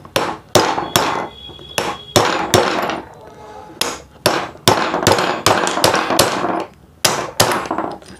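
Repeated hammer blows on the armature shaft of an RO booster pump motor, about eighteen sharp metallic strikes with a brief ring. They come in uneven bursts with short pauses between. The armature is being driven out of the motor housing to reach a worn, noisy bearing.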